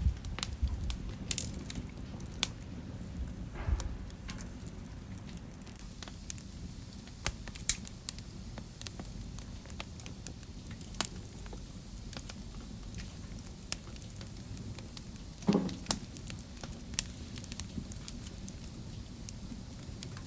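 Wood fire crackling in a fireplace: sharp, irregular pops and snaps over a low, steady rumble of flame. A louder pop with a brief falling tone comes about three-quarters of the way through.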